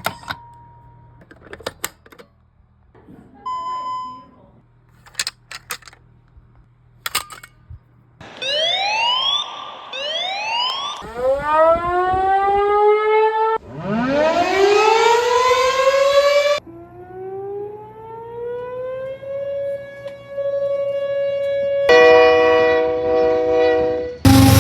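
Silent Knight SD-500PS electronic siren unit sounding test tones. It gives two short beeps and a few clicks, then several quick rising siren wind-ups, a slower rising wail, and a short many-toned horn chord near the end.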